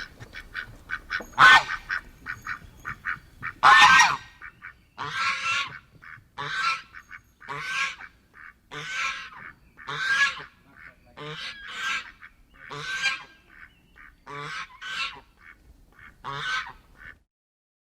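A flock of geese honking, one call after another about once a second, with the loudest calls in the first few seconds; the honking stops about 17 seconds in.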